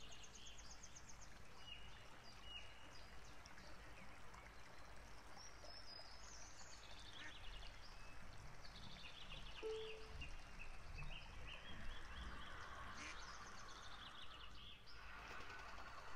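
Faint birds chirping and trilling in quick repeated notes over a soft hiss, with a brief steady low tone about ten seconds in.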